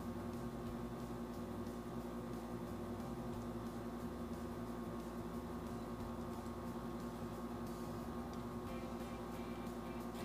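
Steady low hum made of several held tones, unchanging throughout.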